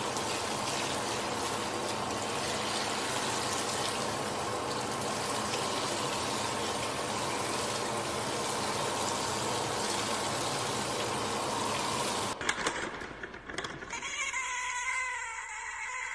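Steady hiss of a handheld sprayer spraying water onto a dog in a grooming tub, cutting off suddenly about 12 seconds in. A couple of seconds later a cat gives a drawn-out meow that wavers in pitch.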